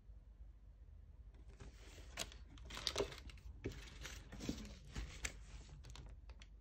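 Plastic icing piping bags crinkling and rustling as they are handled, with small clicks and taps, starting about a second and a half in and stopping shortly before the end.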